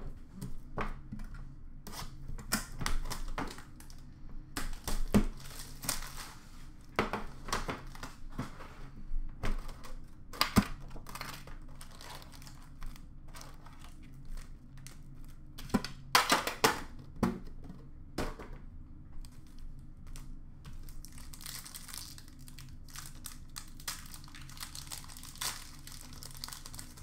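Upper Deck hockey card tin and packs being opened by hand: a plastic tray lifted out and pack wrappers crinkled and torn, with irregular crackles and clicks. Louder bursts come about five, ten and sixteen seconds in.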